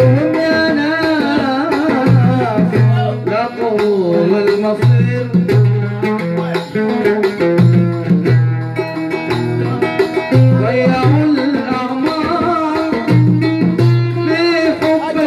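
An oud played live with a man singing into a microphone, over an accompaniment with a repeating low beat.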